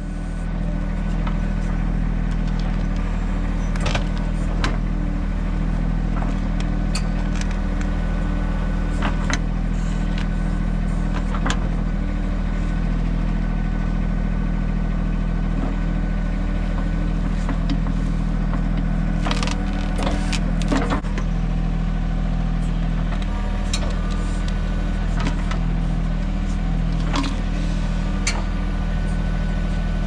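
Mahindra 1626 compact tractor's diesel engine running steadily while it powers the 1626B backhoe, with occasional sharp knocks.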